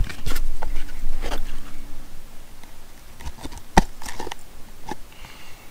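Handling sounds from sanding discs and a cordless orbital sander being picked up and moved about: scattered rustles, light knocks and clicks, the sharpest a little under four seconds in.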